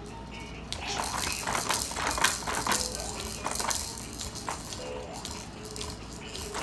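Hard plastic toys on a baby activity jumper rattling and clacking as the baby grabs and shakes them. There is a quick, irregular run of clicks, busiest in the first half.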